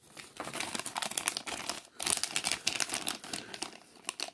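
Thin clear plastic parts baggie crinkling as it is picked up and handled: a dense run of crackles, with a brief pause about two seconds in.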